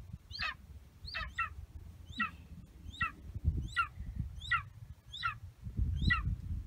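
A young golden eagle calling in a run of short, high, thin chirps. Each chirp slides down in pitch, and they come about one or two a second, sometimes in quick pairs.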